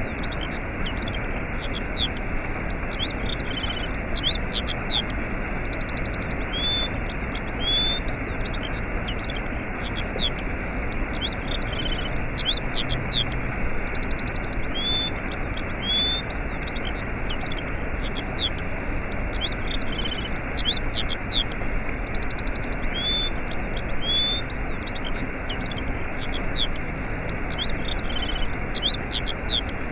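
A waterfall rushing steadily, with small birds chirping and tweeting over it in many quick, short calls throughout.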